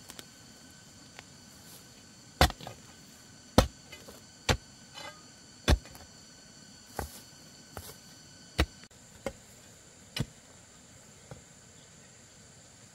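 A series of sharp chopping or striking knocks, about ten of them at uneven spacing of roughly a second, the loudest in the first half.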